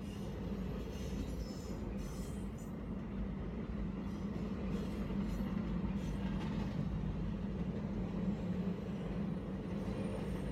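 A freight train's intermodal well cars rolling steadily past a grade crossing, a continuous low rumble of wheels on rail, heard from inside a car.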